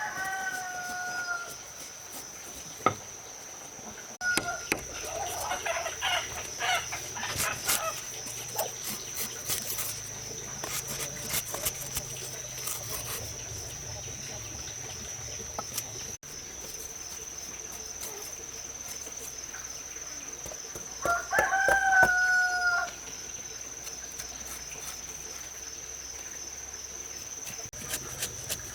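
A rooster crowing twice, once at the start and again about 21 seconds in, each crow ending in a held, slightly falling note. Scattered clicks and knocks in between, and a steady high thin tone throughout.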